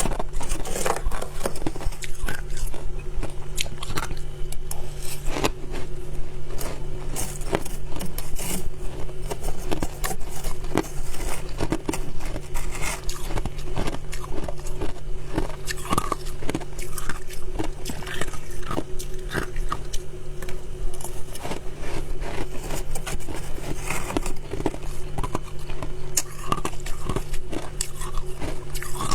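Close-up biting and chewing of soft white ice: dense, irregular crunching and crackling that never lets up, over a steady low hum.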